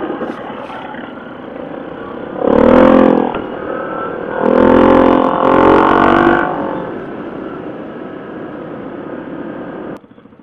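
Yamaha 700 ATV's single-cylinder engine running on a dirt trail, revving up twice, once briefly about two and a half seconds in and again for about two seconds a little later, then settling back to a steady run before the sound drops off suddenly near the end.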